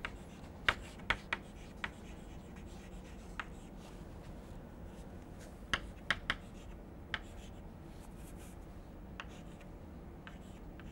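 Chalk writing on a chalkboard: short, sharp taps and scratches as letters are formed, in scattered clusters over a faint low hum of the room.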